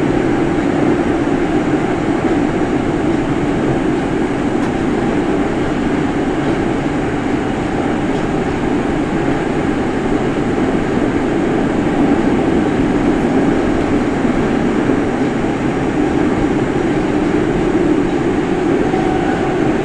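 Steady running noise inside a refurbished Nagoya Municipal Subway 2000-series car with IGBT VVVF inverter, as the train runs through the tunnel: wheels on rail and the car's rumble, holding an even level with no braking or stop.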